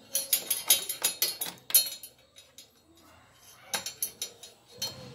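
Keys clinking and jangling against a scooter's metal and plastic front as they are fiddled with by hand: a quick run of sharp clinks over the first two seconds, a pause, then a few more clinks near the end.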